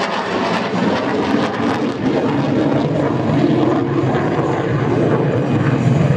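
USAF F-16C fighter jet engine running at display power as the jet manoeuvres overhead: loud, steady jet noise that grows stronger toward the end.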